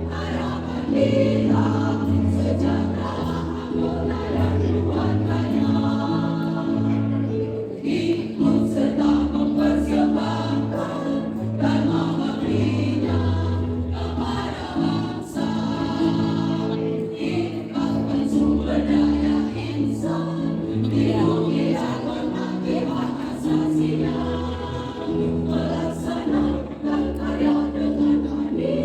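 A choir singing in parts, with a low sustained accompaniment beneath the voices.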